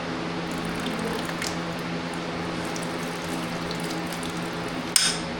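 Liquid being poured and trickling into a container over a steady fan hum, ending with one sharp clink about five seconds in.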